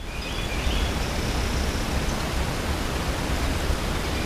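Steady wind noise on the microphone: an even hiss over a fluttering low rumble.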